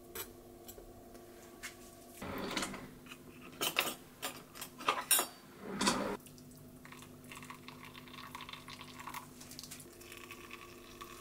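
Kitchen handling sounds: a few seconds of clinking and clattering of dishes and utensils in the middle. Then a soft trickle of hot water poured from a kettle into a drip-bag coffee in a ceramic mug near the end.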